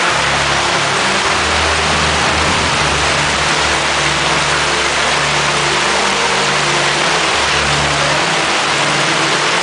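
Hailstorm: hail and rain pelting down in a dense, steady hiss, with a low hum coming and going underneath.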